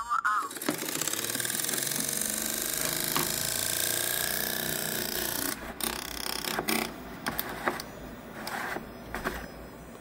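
Mudiro M-55 diesel heater's blower fan running with a rubbing, scraping whir. The fan is catching on rough injection-moulding edges of its plastic shroud, which is screwed on too tight. The sound cuts off abruptly about five and a half seconds in, and scattered clicks and handling knocks follow as the fan shroud is worked loose.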